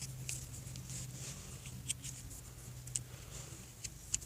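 Parts of a home-made plastic switchblade being handled and fitted together: faint scattered clicks and scratchy rubbing, over a steady low hum.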